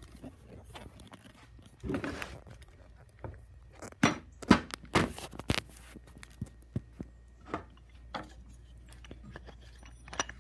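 Boards being handled and set down on a table saw's metal top: scattered knocks, taps and light scrapes, with a quick run of sharper knocks about four to five seconds in.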